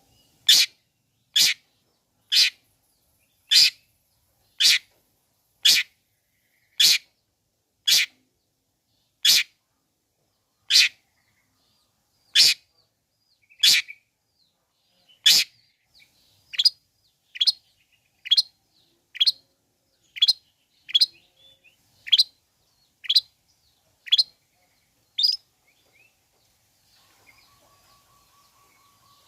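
Long-tailed shrike (cendet) giving a long series of short, harsh calls, about one a second, coming a little faster in the second half and stopping about 26 seconds in. A faint, higher trill follows near the end.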